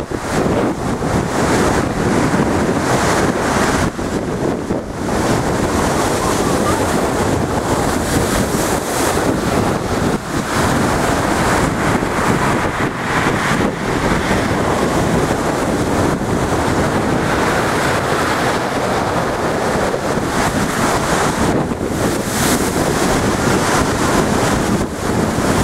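Rough storm sea surging and churning against a sea wall in a steady, unbroken rush of surf, with strong wind buffeting the microphone.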